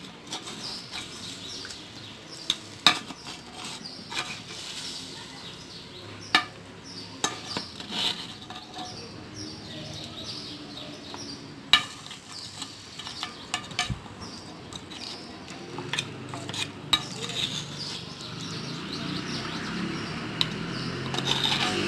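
Dishes and cutlery clinking and knocking in sporadic sharp clicks as food is handled on a dish, over a faint hiss. A low rumble builds over the last few seconds.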